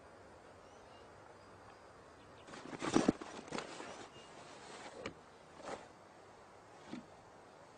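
Rustling and knocking as a cloth-covered loudspeaker box is handled, loudest in a burst around three seconds in, followed by three single thumps.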